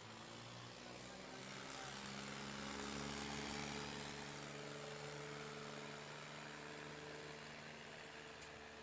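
Diesel tractor engines labouring under heavy load in a tractor tug-of-war, with a steady engine drone. A surge of noise comes about two to four seconds in.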